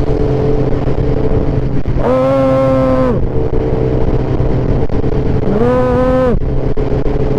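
Vehicle engine running steadily under loud road and wind noise while driving at speed. About two seconds in, and again near the end, a pitched sound holds for about a second, rising at its start and dropping away as it stops.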